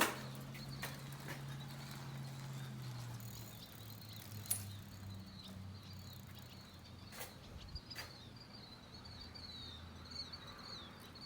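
Outdoor ambience: small birds chirping in quick high runs that grow busier over the second half, over a steady low hum and a few sharp clicks.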